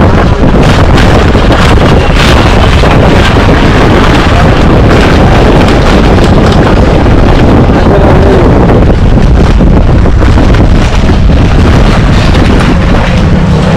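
Heavy wind buffeting on the microphone: a loud, steady rumbling roar that drowns out the street sounds.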